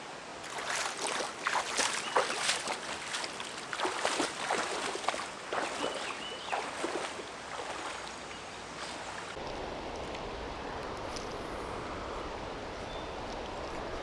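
Shallow river water running and splashing over rocks close up, full of small crackling splashes. About nine seconds in it changes to a steadier, even rush of river current.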